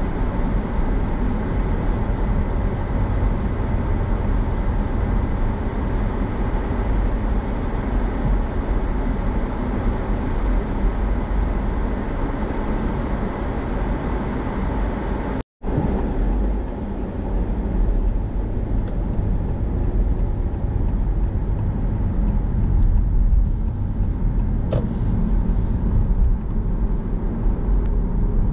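Steady road and running noise inside the cabin of an 11th-generation Honda Civic e:HEV as it drives, heaviest in the low end. The sound cuts out for a split second about halfway through.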